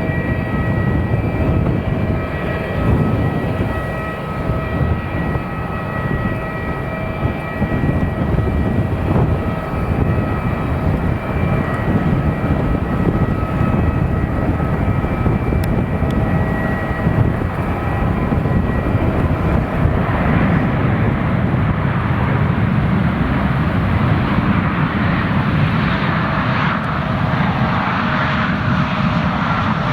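Airliner jet engines running loud: a steady rumble carrying several high, steady whining tones, giving way about two-thirds of the way through to a broader, rougher roar.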